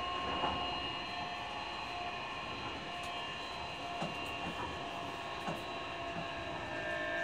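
Nishitetsu 9000 series electric train running, heard from inside the passenger car: several steady whining tones from its Toshiba hybrid-SiC VVVF inverter and enclosed induction traction motors over the rumble of the wheels, with a few short knocks from the track. Near the end a further, lower tone joins the whine.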